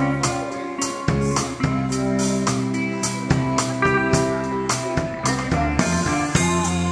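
Rock band playing live: electric guitar, bass and synthesizer notes over a drum kit keeping a steady beat, heard as it would be at a sound check.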